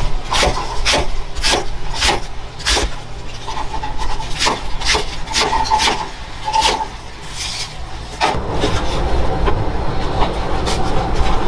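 Chef's knife chopping cabbage on a plastic cutting board: crisp strokes about two a second, each a crunch through the leaves and a tap on the board. About eight seconds in the chopping stops and a denser, steady noise takes over.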